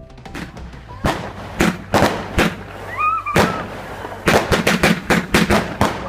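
Fireworks going off in a barrage of sharp bangs and crackles. They start about a second in and come fast and thick from about four seconds.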